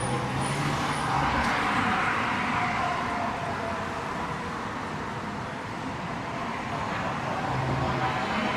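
Downtown city street traffic noise: a steady wash of passing cars that swells slightly twice, with no single sound standing out.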